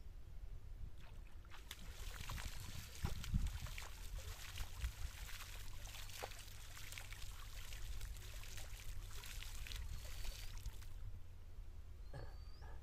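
Pond water splashing and sloshing where a rope is hauled through the shallows, a dense run of splashes from about a second and a half in until near the end.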